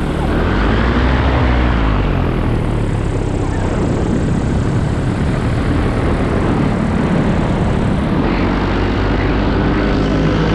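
Paramotor engine and propeller running steadily in flight, its pitch drifting slightly up and down now and then.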